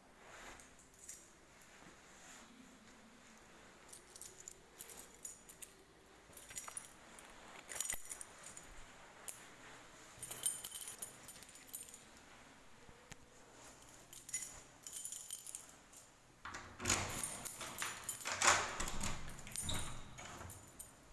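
Keys jangling in short, scattered bursts, with a longer, louder stretch of jangling near the end.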